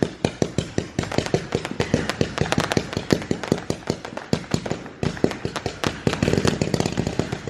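A long string of firecrackers going off: rapid, irregular sharp cracks, several a second, without a break.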